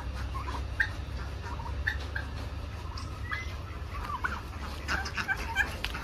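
A flock of domestic turkeys calling, with many short calls scattered irregularly and overlapping.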